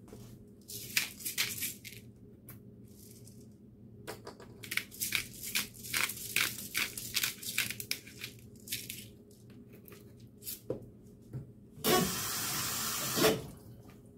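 Black pepper being ground from a hand-twisted pepper mill: two runs of quick, gritty grinding strokes, about four or five a second, the longer run lasting about four seconds. Near the end comes a louder rushing noise of about a second and a half.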